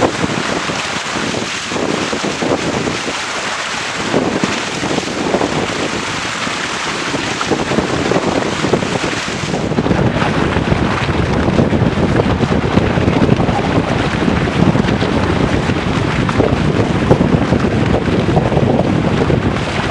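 Wind buffeting the microphone of a small camera on a Weta trimaran sailing fast downwind, with water rushing and splashing past the hull. About halfway through the sound turns to a heavier, lower rush.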